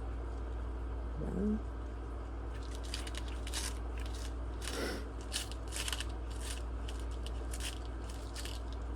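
Scattered light clicks and rustles of tiny laptop screws being handled and sorted through in an assortment kit, over a steady low hum. There are two brief murmured hums from the person, about a second in and near the middle.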